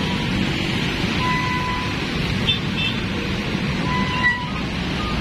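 Steady rumble of road traffic with motorcycles passing, mixed with wind on the microphone. A few faint short squeaks sound a couple of seconds apart, about one second in and again near four seconds.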